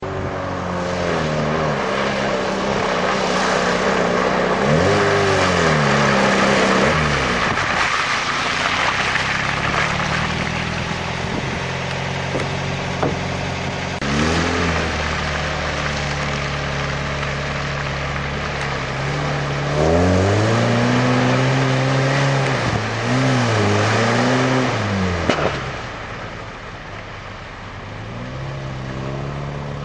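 Compact pickup truck's engine revving hard as it churns through deep mud, the revs surging and dropping several times over a steady rush of spinning tyres and flung mud. It is the sound of a truck fighting to keep moving in the mud.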